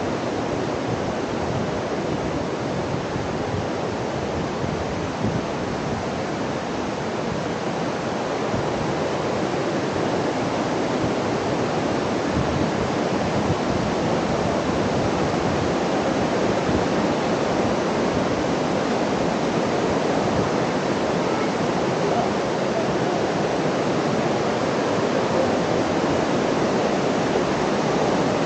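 Rushing water, a steady noise with no breaks, growing a little louder toward the end.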